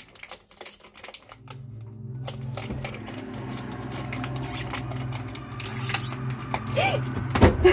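Crinkling and tearing of a small plastic face-mask sachet handled close up, in many short crackling clicks. About a second and a half in, a low steady drone comes in beneath it and runs on.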